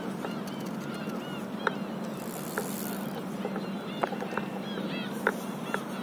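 Light water sounds on calm sea: scattered small plinks and sharp ticks of water against a paddleboard, over a steady low hum.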